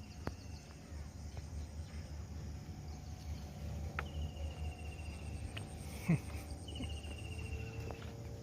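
Outdoor ambience: a steady low rumble with a few sharp clicks and three short chirping trills, and one dull thump about six seconds in, the loudest moment.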